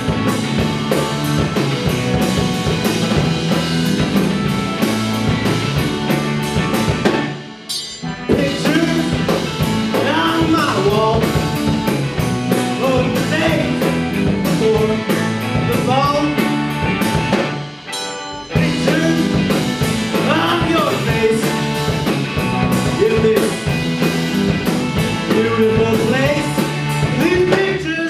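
Live rock band playing: electric guitars and a drum kit, with singing. The whole band stops short twice, about seven and a half and eighteen seconds in, then comes straight back in.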